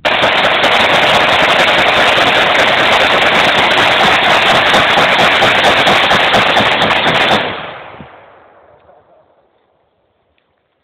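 Fully automatic gunfire: one continuous burst of about seven seconds that stops abruptly, followed by its echo dying away over about two seconds.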